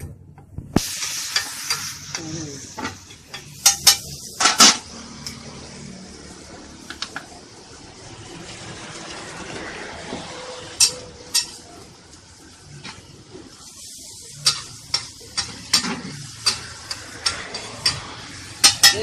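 Idli kothu frying on a hot griddle: a steady sizzle that flares up suddenly about a second in, with sharp clanks of metal spatulas striking the griddle, a few scattered at first and a quicker run of about two a second near the end.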